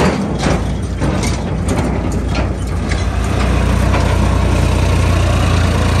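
Diesel tractor engine idling, with scattered clicks and knocks over it for the first few seconds. From about three seconds in the engine runs steady and louder, a low even drone.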